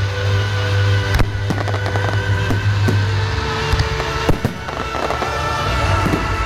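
Aerial firework shells bursting in sharp bangs, the loudest about a second in and again about four seconds in, with smaller cracks between. Music with sustained notes and a steady bass plays underneath.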